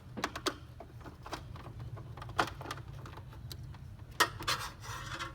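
A hand screwdriver turning out a small screw from a plastic ice-maker housing: scattered light clicks and knocks of metal on plastic. A sharper knock comes about two and a half seconds in and another about four seconds in, followed by a short run of clicks as the part works loose.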